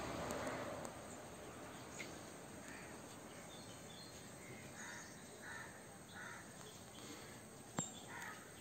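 Crows cawing faintly, a few short calls around the middle and again near the end. A single sharp tap sounds just before the last calls.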